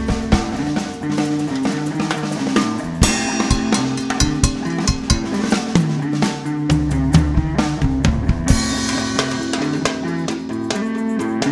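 Drum kit played with sticks, with frequent snare and bass drum hits, over a looped backing of held pitched tones.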